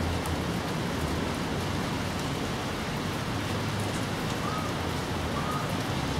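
Steady rain falling, an even hiss of rain without a break. A few faint short high tones come through near the end.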